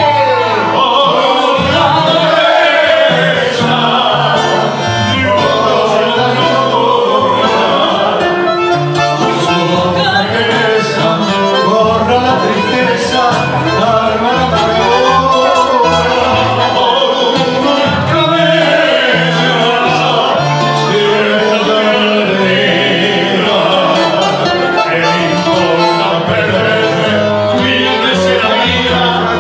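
A tango song sung live into a microphone over instrumental accompaniment, with a melodic vocal line and a stepping bass line underneath.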